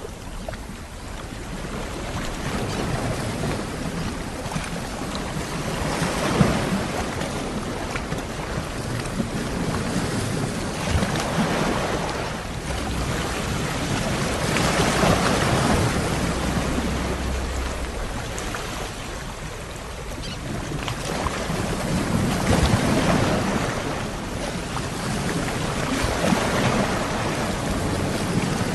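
Ocean waves breaking and washing on the shore, a rushing surf that swells and falls back every few seconds.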